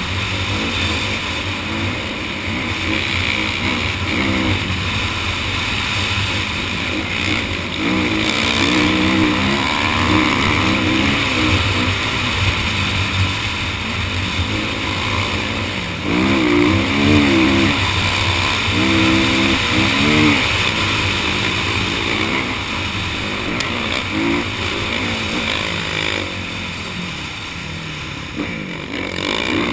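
Dirt bike engine running hard over sand, its pitch rising and falling again and again as the throttle is opened and closed, over a steady rushing noise.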